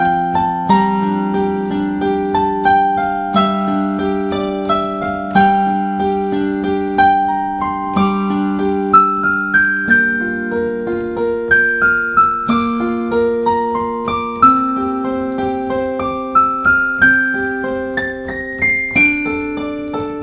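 Background music: an electric piano playing a slow melody over held chords.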